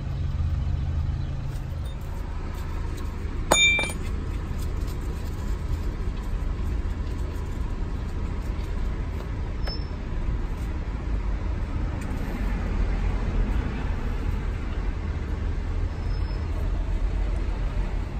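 Steady low rumble with a single sharp metallic clink about three and a half seconds in, while engine oil drains in a thin stream from the ATV's crankcase into a plastic drain pan.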